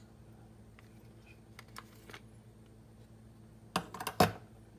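Handling clicks from a Taurus G2C 9mm pistol as its magazine is taken out. A few faint clicks come first, then a quick run of sharp clicks and knocks about four seconds in.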